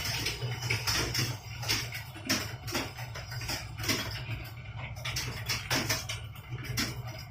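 Computer keyboards clattering under typing, irregular rapid key clicks several a second, over a steady low hum.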